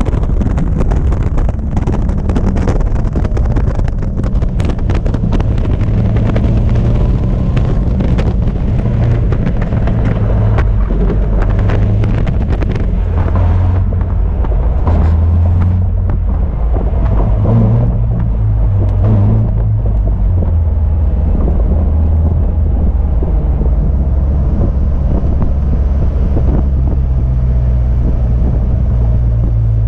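Caterham Seven race car's four-cylinder engine running hard on track, heard from the open cockpit, its note rising and falling. Wind buffets the microphone throughout.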